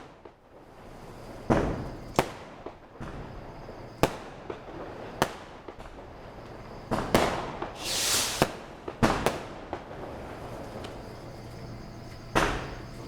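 Diwali firecrackers going off: about eight sharp bangs at irregular intervals, with a hissing whoosh about eight seconds in.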